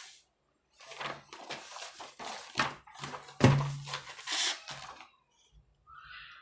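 Sheets of paper rustling and flapping as a thick stack of documents is handled and its pages turned, in a quick run of crisp strokes, with one heavier knock against the tabletop about halfway through.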